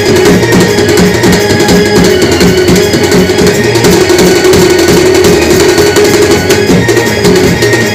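Indian brass band's drummers playing loud, fast drumming on large stick-beaten band drums, in an even beat over a steady held note.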